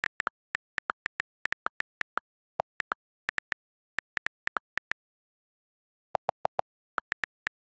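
iPad on-screen keyboard key-click sounds during typing: a quick, uneven run of short ticks, with a group of four deeper clicks in quick succession about six seconds in.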